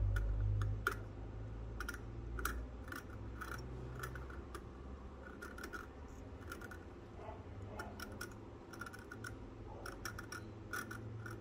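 Irregular small clicks and light scrapes of metal parts as an old rusty fishing reel is handled, with a low rumble in the first second or so.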